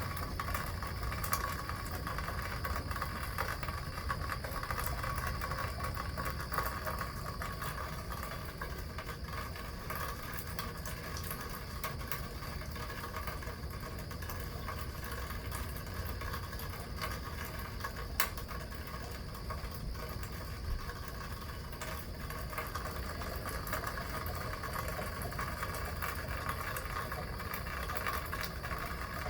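Steady heavy rain, with water from a rain gutter running and splashing loudly and without a break. A single sharp tap stands out about eighteen seconds in.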